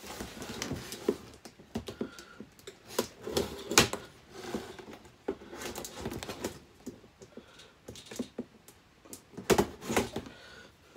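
Unboxing sounds: a cardboard box and the parts and packaging inside it being handled, with irregular clicks and knocks over light rustling.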